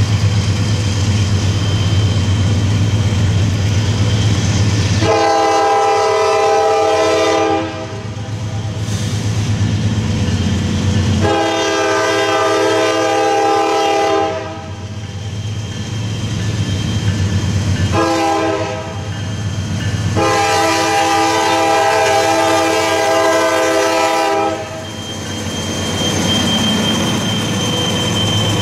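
A Norfolk Southern freight locomotive's air horn blows the grade-crossing signal as the train approaches: long, long, short, long, with the last blast the longest. Under it runs the steady low rumble of the diesel locomotives, which pass close by near the end.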